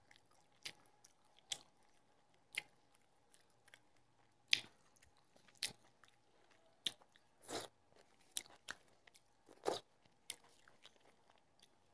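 Close-miked eating sounds: chewing a mouthful of rice and curry, with short soft smacks and crunches about once a second.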